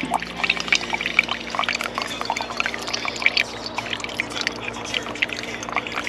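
Brewed coffee dripping and trickling from a GSI Ultralight Java Drip mesh cone filter into a metal camp mug, a quick irregular patter of drops.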